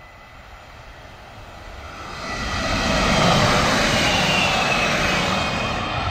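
Two-car FPS Plus 227M bi-mode multiple unit passing at speed: the rumble and rush of its wheels on the rails swell as it approaches, stay loud for about three seconds as it goes by, and begin to fade near the end. A high whine drops in pitch as it passes.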